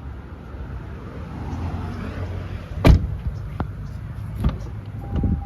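A 2005 Chevrolet Avalanche's door shutting with one loud thud about three seconds in, followed by a couple of lighter knocks, over a steady low hum. A steady chime tone starts near the end.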